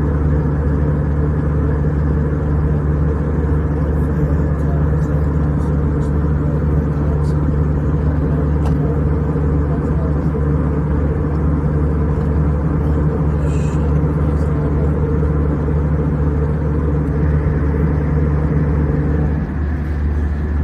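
Steady drone of an airliner cabin in cruise: jet engine and airflow noise, with constant low hum bands. Part of the drone drops slightly about nineteen seconds in.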